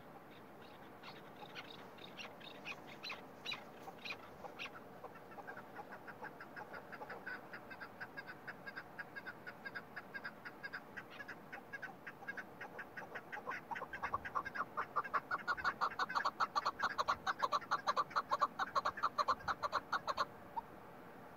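Chukar partridge calling: a long run of rapid clucking notes, a few separate ones at first, then growing louder and faster from about two-thirds of the way in, breaking off suddenly shortly before the end.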